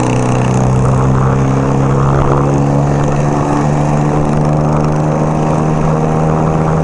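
1975 Kawasaki KZ400 parallel-twin motorcycle engine running at a steady cruise with wind rushing past.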